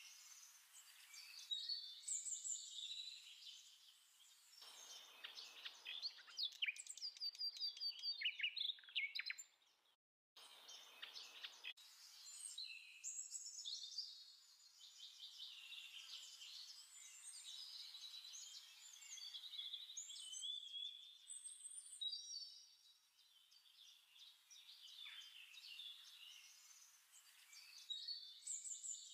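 Faint birds chirping and singing, many short overlapping calls, with a brief dropout to silence about ten seconds in.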